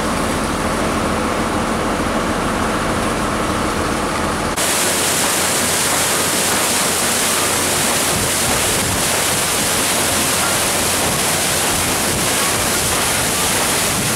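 Stern paddlewheel of the steamboat Natchez turning and churning river water: a loud, steady rushing splash, coming in about four and a half seconds in after a low, steady hum.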